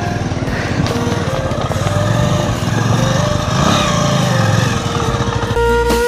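Motorcycle engine running close by, revving up and down around the middle. A flute melody comes in near the end.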